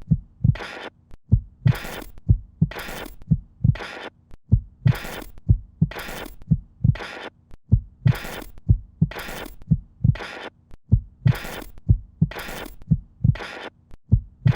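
A steady, heartbeat-like pulse: deep low thumps alternating with short hissing bursts, about three beats every two seconds, in an unchanging repeating pattern.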